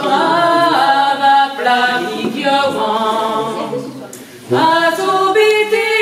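Two women singing a traditional Breton song a cappella in the Breton language, with no instruments. The singing breaks briefly about four seconds in, then the next phrase begins.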